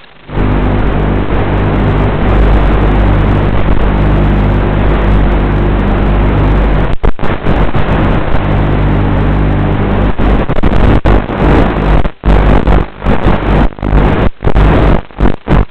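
Loud steady static hiss with a low buzz on the FPV boat's onboard audio. It cuts out briefly several times from about seven seconds in.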